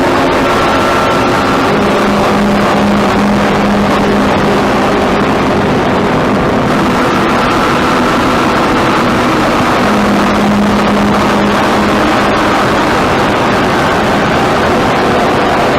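Ambient noise music: a loud, dense wall of rumbling noise with held droning tones. A low drone comes in about two seconds in, fades out, and returns near the ten-second mark, while a higher drone enters partway through.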